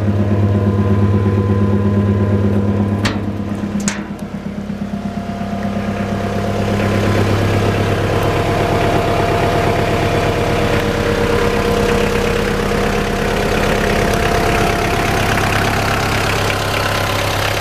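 Kubota tractor's diesel engine idling steadily, with two sharp clicks around three and four seconds in; the sound grows louder and rougher from about six seconds in.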